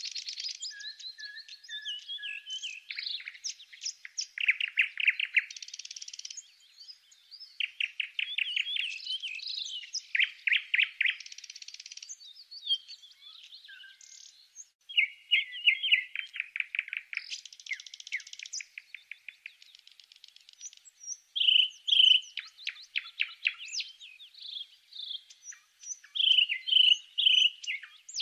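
A songbird singing: rapid trills of repeated notes mixed with short chirps, in phrases of about a second with brief pauses between them.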